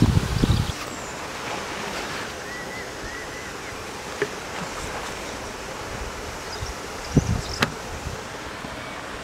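Steady outdoor wind hiss, opening with a loud low rumble of wind on the microphone that cuts off within the first second. A few faint bird chirps come through early on, and a couple of sharp knocks sound in the second half.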